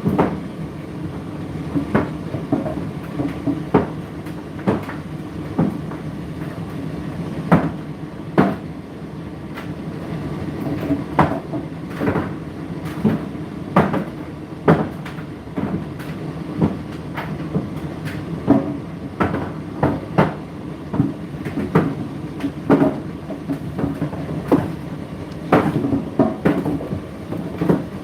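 Indesit IDC8T3 condenser tumble dryer running: a steady motor and drum hum, with irregular knocks and clicks about one or two a second as the load tumbles in the drum.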